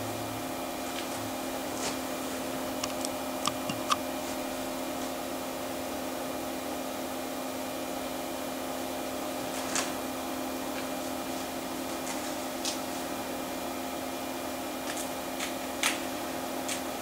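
Macintosh Plus running idle with its internal SCSI hard drive spinning: a steady hum made of several tones, with a dozen or so faint clicks scattered through it.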